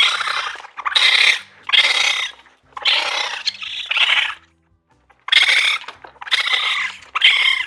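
Raccoon calling: a series of about seven harsh, raspy squeals in short bursts, with a longer pause midway.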